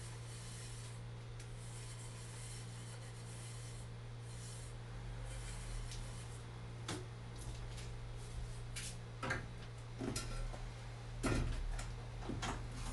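Kitchen handling noises over a steady low hum: a few light knocks and clinks from the second half on, a cluster about 9 to 11 seconds in, as a baking mould is being oiled.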